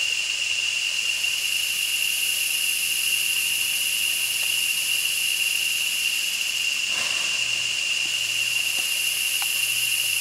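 Steady, high-pitched drone of insects calling, one unbroken tone with a hiss above it.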